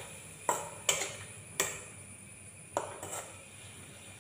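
Metal spatula scraping and knocking against a metal kadhai while stirring thick masala paste, about five sharp clinks spread over three seconds.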